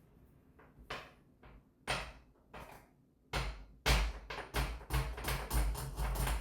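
A run of sharp knocks and clatter from hard parts being handled: a few spaced knocks, then a quicker, louder string of them from about halfway in.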